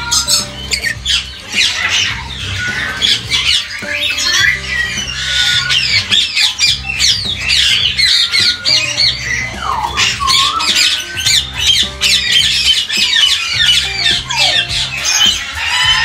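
A flock of captive lories screeching and squawking, with many shrill calls overlapping nonstop and a few falling squawks about ten seconds in. Background music runs low underneath.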